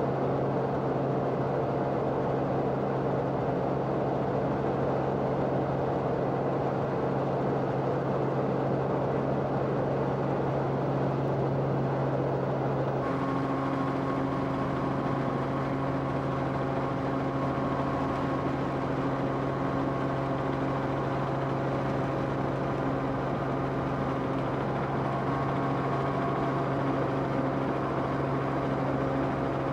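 Steady drone of an aircraft's engine heard from inside the cabin, with a change in its hum about halfway through.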